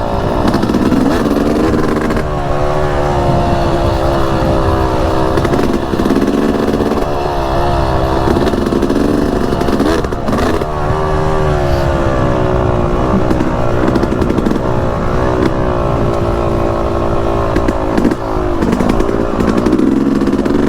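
Yamaha YZ250X 250cc two-stroke dirt bike engine being ridden on a trail, its pitch rising and falling over and over as the throttle is opened and rolled off.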